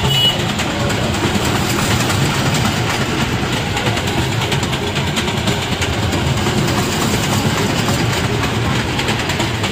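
Small children's train ride running round its steel track: a steady rumble with a continual light clatter of the cars' wheels on the rails.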